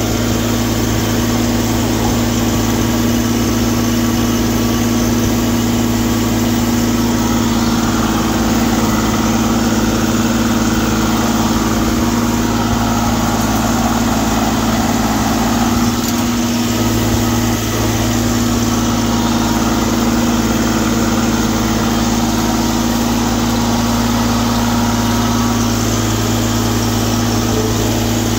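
Kubota WG750 three-cylinder gas engine of a Prochem Apex carpet-cleaning extractor running at a constant speed, driving the vacuum, heat and pressure pump; a loud, steady hum with no change in pitch.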